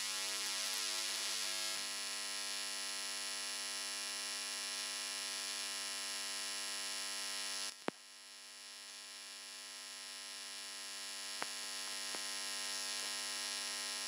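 Steady electrical mains hum with a buzzing edge. About eight seconds in it cuts out with a click, then slowly fades back up.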